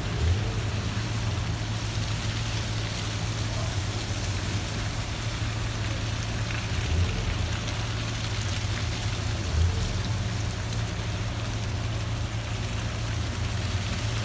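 Cars crawling along a slush-covered street: engines running with a steady low hum under the hiss of tyres in wet slush, and a few brief low bumps.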